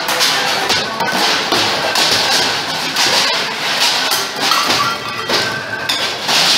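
Stainless steel plates and bowls clattering and clanging, tossed onto a wet stone floor and into steel tubs. It is a continuous, irregular rattle of metal dishes with ringing clinks.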